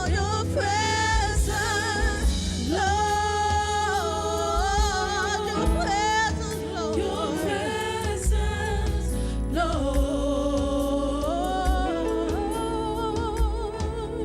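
Gospel worship music: a singer holding long, wavering notes over keyboard and bass accompaniment, with a steady low bass underneath.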